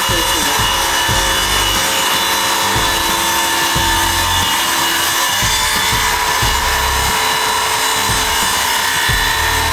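Electric circular-blade power saw running and cutting through timber: a steady motor whine over the rasp of the blade in the wood.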